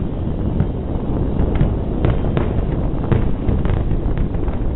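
Fireworks display with volleys of aerial shells bursting: a dense, unbroken rumble of booms with many sharp cracks.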